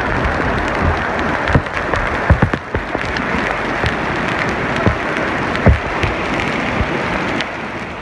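Heavy rain pouring onto a stone-paved courtyard: a dense, steady hiss with scattered sharp knocks and a few heavy thumps, easing off near the end.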